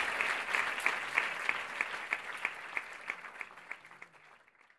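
Audience applauding, with one close set of claps standing out at about three a second, fading out steadily to nothing near the end.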